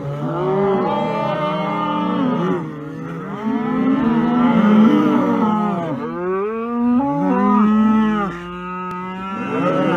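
Cattle mooing: a run of long, drawn-out moos that bend in pitch, one after another with short breaks between them.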